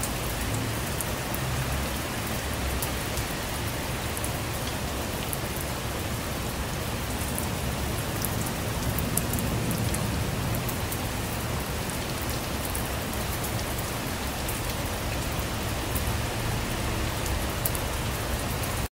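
Steady rain falling on a surface, a dense hiss with many individual drops ticking through it and a low rumble underneath. It cuts off suddenly at the very end.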